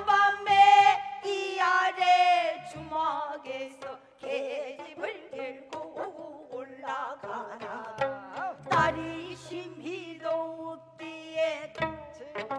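Gayageum byeongchang: a woman sings in pansori style with a wide, wavering vibrato over the plucked gayageum, with a buk barrel drum marking the beat. The voice drops out for a few seconds in the middle while the plucked strings carry on, then comes back.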